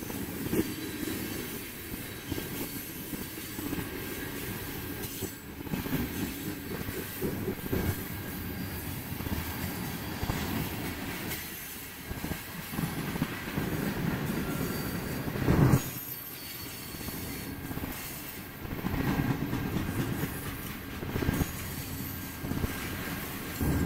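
Freight cars of a manifest train rolling past close by: a steady rumble of steel wheels on rail with repeated wheel clacks. One louder bang comes about two-thirds of the way through.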